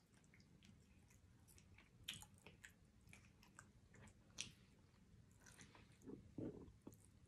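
Quiet chewing and wet mouth clicks of a person eating neck bones by hand, with a few sharper smacks about two and four seconds in.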